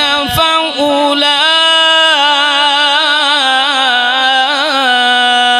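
Male qari's melodic Quran recitation (tilawat), amplified through a microphone. He draws out the last syllable of "dhalika" as one long held note, stepping up in pitch and then wavering in ornaments before holding steady.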